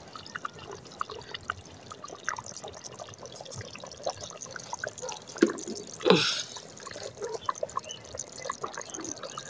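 Chicken korma simmering in a clay karahi: a steady scatter of small bubbling pops and drips, with two louder blips about five and six seconds in.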